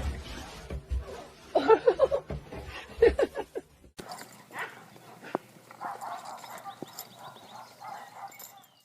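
A dog vocalizing back in two short, pitched bursts, about two and three seconds in, followed by quieter sounds.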